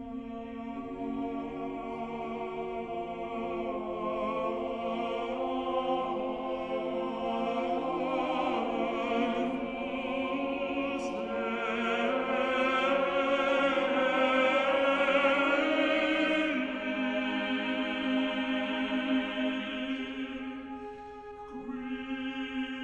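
Slow, solemn choral singing over a musical backing, with long held notes that swell to their loudest about two-thirds of the way through, fade briefly near the end, then return.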